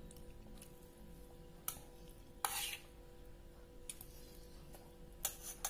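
A metal spoon clinks and scrapes against a stainless steel pot as food is scooped, in a few separate strokes. The loudest is a short scrape about two and a half seconds in, and there are several quick clinks near the end, over a faint steady hum.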